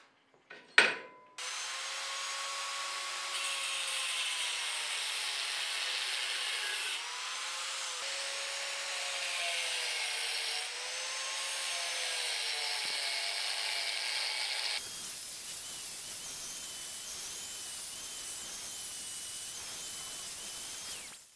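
Angle grinder with a cut-off disc cutting through a steel threaded rod held in a vise: a steady grinding with a motor whine that wavers up and down in pitch as the disc bites, stopping abruptly near the end. A single sharp knock about a second in comes just before the grinding starts.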